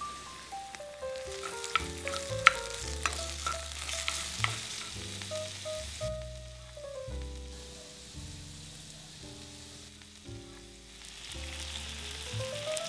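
Sliced onion and minced garlic sizzling in oil in a frying pan, with a few sharp stirring clicks about two to five seconds in. The sizzle grows louder near the end as oyster sauce pours into the pan. Soft background music with a melody and bass plays throughout.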